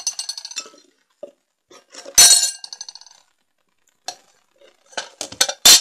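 Dishes clinking together in a few sharp knocks. The loudest comes about two seconds in and rings on briefly, and a quick run of clinks follows near the end.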